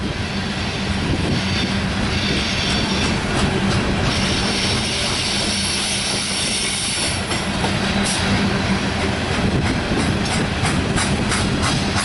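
Coal train's gondola cars rolling past on steel wheels with a steady rumble. A brighter high hiss comes in from about four to seven seconds, then a quick run of clicks as the wheels cross rail joints.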